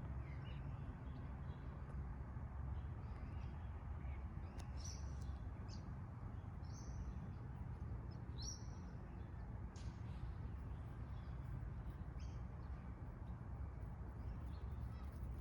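Outdoor ambience: a steady low rumble with a few short, high bird chirps scattered through it, the clearest three coming a couple of seconds apart.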